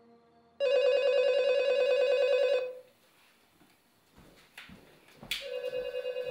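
Telephone ringing with a fast trilling ring: one loud ring of about two seconds starting under a second in, then a fainter second ring starting about five seconds in, with a sharp click just before it.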